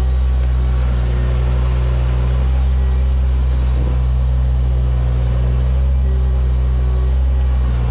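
New Holland LS140 skid steer's diesel engine running steadily at a constant speed, with a faint whine that comes and goes over it.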